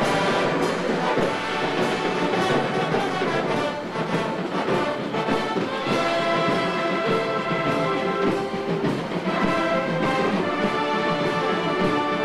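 Brass band playing a march: held brass chords over percussion hits that keep the beat.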